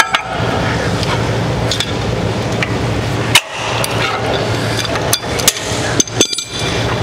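Metal clicks and clinks of a steel snap hook being unclipped from a straight cable bar, then the bar being handled and set down, with several sharp clicks close together near the end.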